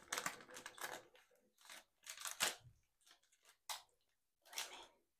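Close-miked handling sounds from a sour gummy candy strip: about five short noisy bursts with quiet gaps between them.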